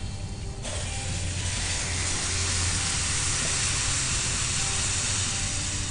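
Water poured from a steel jug into a hot pan of oil-fried masala and country chicken, sizzling and hissing as it hits the hot oil; the sizzle starts suddenly about half a second in and stays steady.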